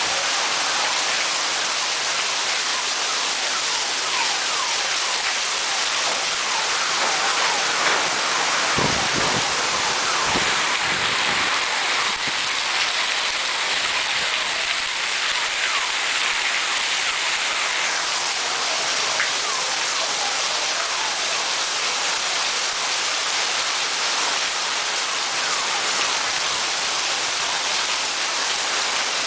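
Steady rain falling, with drops striking a surface. About nine seconds in a brief low rumble sounds, and a higher hiss swells over the rain for several seconds after it.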